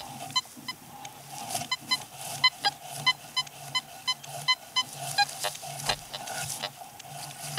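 Fisher F75 metal detector giving quick high beeps, several a second in clusters through the first five seconds, as its search coil is swept over frosty grass. A steady low hum runs under them.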